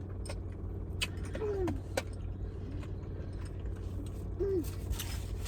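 Eating sounds from barbecue ribs: chewing, scattered sharp mouth clicks and a few short hums, over the steady hum of an idling car engine.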